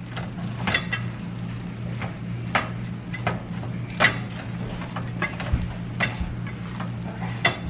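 A metal spoon scraping and clinking against a stainless steel skillet as ground turkey and rice are stirred together, with irregular sharp clinks about once a second.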